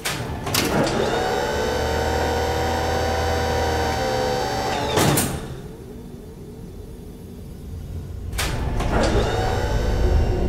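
Sci-fi sliding-door sound effect: two quick hits, then a whirring mechanical tone that holds for about four seconds and ends in a whoosh about five seconds in. A second whoosh comes about eight and a half seconds in and leads into a low rumble that builds toward the end.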